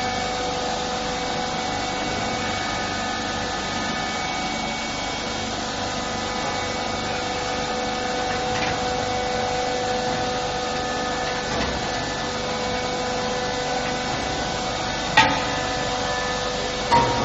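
Steady running of workshop machinery with a rasping, cutting-like noise and several steady hum tones. Two sharp knocks come near the end, about two seconds apart.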